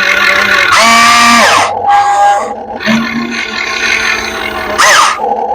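RC excavator's motor and hydraulics working in bursts of hiss, with a whine that rises, holds and falls in pitch as each movement starts and stops.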